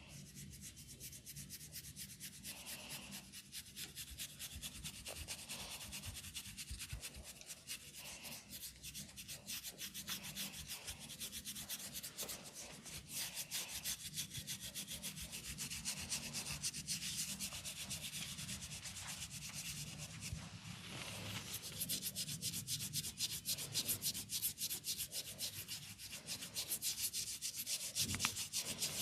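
Head massage: fingers rubbing briskly through hair and over the scalp, a fast, continuous scratching that grows louder in the second half.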